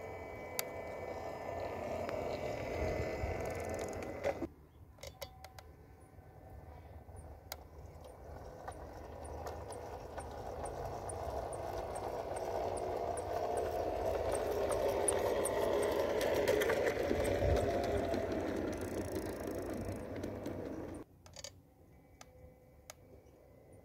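G-scale model Thomas the Tank Engine locomotive pulling coaches along garden-railway track: a steady whir of its electric motor and gears with metal wheels rolling on the rails and light regular clicking. It grows louder as the train comes near and then eases off, and the sound cuts off abruptly about four seconds in and again near the end.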